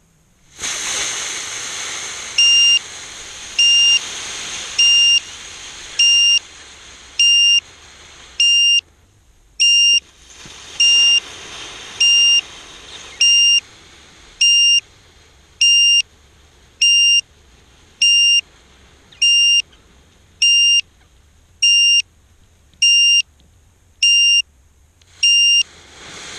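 Crashed FPV racing quadcopter's locator buzzer beeping, one short high beep about every 1.2 s, the alarm that helps find a downed drone. Under the beeps a hiss comes and goes, louder in the first seconds and again near the end.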